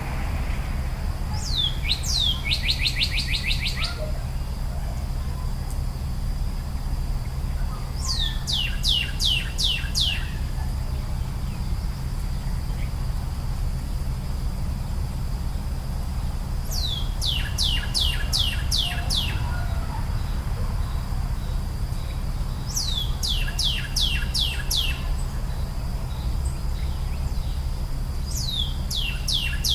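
A songbird singing short phrases of quick, repeated, downward-sweeping high notes, five phrases spaced several seconds apart, over a steady low background rumble.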